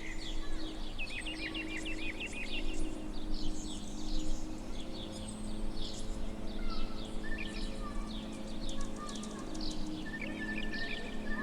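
Small birds chirping and twittering over and over, in quick trills and short calls, over a low steady hum.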